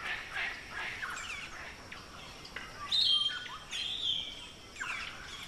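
Wild birds calling together, many short overlapping chirps and whistles, with a louder high whistle about three seconds in.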